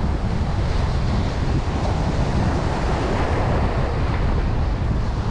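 Wind buffeting the microphone over the steady wash of ocean surf: a constant low rumble with a hiss above it, unchanging throughout.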